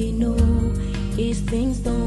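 Background music: a melody over a steady beat and bass.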